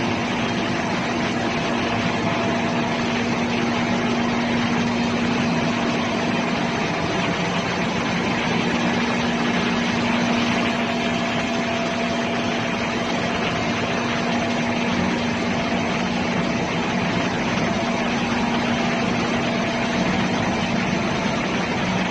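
Steady, loud running noise of a ship's engine-room machinery: a continuous drone with a steady hum tone over a wide rushing noise.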